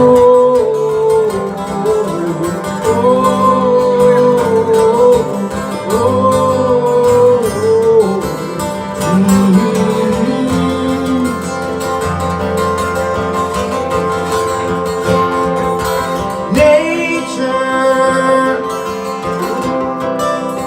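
Live band playing an instrumental passage of a song, guitars carrying it, with a lead melody line sliding and bending in pitch over the backing.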